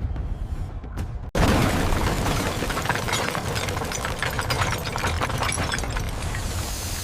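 Sound effect of a wall and building collapsing: a deep rumble, then about a second in a sudden loud crash of breaking, shattering debris with dense crackling that slowly thins out, under dramatic music.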